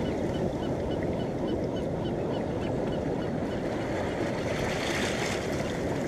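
Pacific surf washing over a rocky shore, a steady, unbroken wash of water noise. A faint high chirp repeats about twice a second through the first half.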